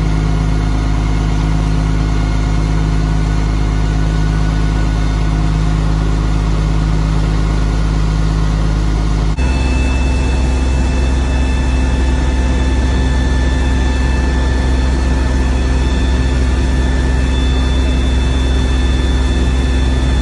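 Fire trucks' engines running steadily at the scene, a continuous heavy hum with steady whines on top. About nine seconds in the sound shifts abruptly to a deeper hum with higher whines.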